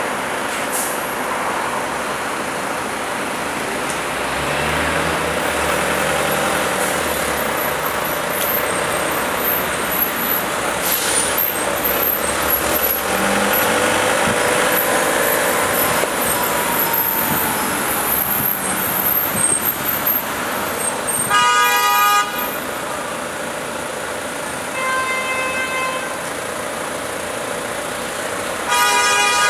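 Steady street traffic noise, with a car horn sounding three times in the last third: a loud blast of about a second, a fainter one a few seconds later, and another loud one at the end.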